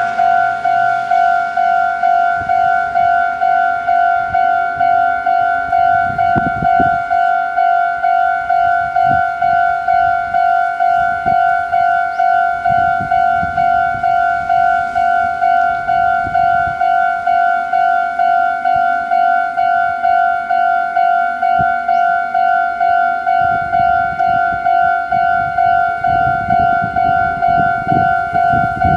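Japanese railway level-crossing warning bell ringing, an electronic ding repeating evenly about twice a second, signalling an approaching train. Over the last few seconds the low rumble of the approaching Meitetsu electric train rises beneath it.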